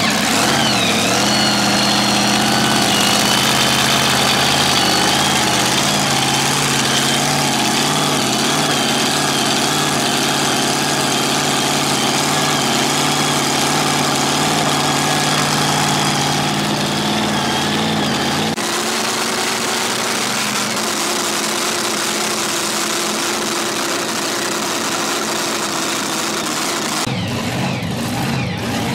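Supercharged racing pull-vehicle engine running loud and steady at idle, just fired after its injector scoop was primed with fuel by hand. About two-thirds of the way through the low engine tones drop away and the sound changes.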